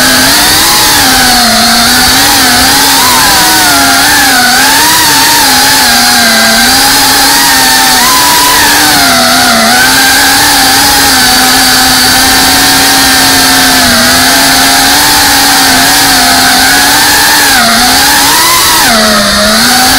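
A racing-style FPV drone's motors and propellers whining loudly and continuously, the pitch wavering up and down as the throttle changes, with a brief dip in pitch near the end.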